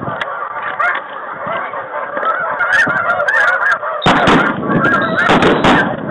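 Snow geese calling, a dense chorus of overlapping high honks. Several sudden loud noises break in from about four seconds in.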